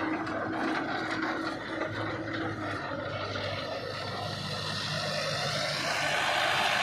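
Mahindra Novo 605 4×4 tractor's diesel engine running steadily as it works through paddy stubble, growing louder near the end as it comes close.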